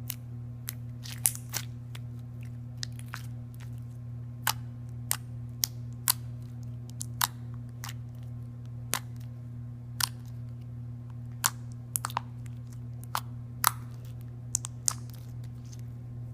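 Homemade clear glue slime worked by hand, giving irregular sharp clicks and pops, some louder than others, spaced a second or so apart. A steady low hum runs underneath.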